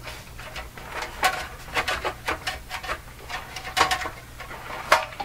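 Metal top cover of a Fisher System 8700 amplifier being worked loose and lifted off its chassis: a run of clicks, knocks and scrapes, some ringing briefly, with the sharpest knock near the end.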